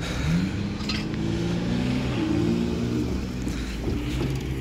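Diesel locomotives of a Norfolk Southern freight train running under power, several steady engine tones layered together, one rising briefly near the start.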